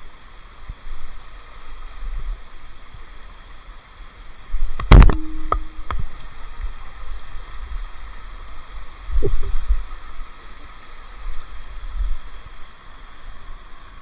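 Handling noise from a moving camera: low rumbling and rubbing, with a sharp knock that rings briefly about five seconds in and another knock just after nine seconds, over a steady background hiss.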